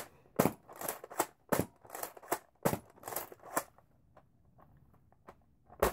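Sharp plastic clicks and clacks of a Nerf Doominator blaster's mechanism and rotating dart drum being worked by hand, about ten in the first three and a half seconds, then only faint clicks. The drum is being turned back after a dart failed to fire.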